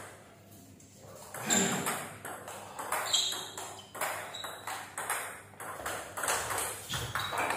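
Table tennis rally: the ball clicking off the bats and the table about twice a second, starting about a second and a half in after a quiet moment.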